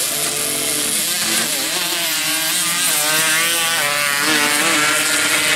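Two racing ATV engines revving hard as they launch off the drag-strip start, the engine pitch wavering up and down as they pull away.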